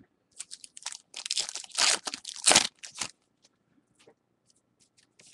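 The wrapper of a 2013 Bowman baseball card pack being torn open and crinkled: a run of crackling that lasts about three seconds and is loudest near the middle, followed by a few faint ticks.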